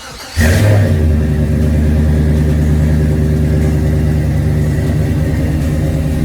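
Car engine cold-started by remote start: it catches about half a second in with a brief flare in revs, then settles into a steady idle.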